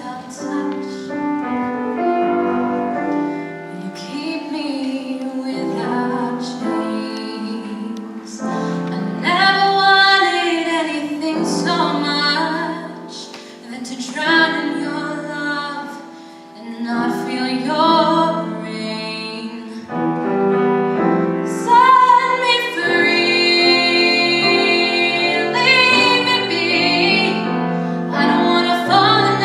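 A woman singing a solo song in a trained voice, with piano accompaniment.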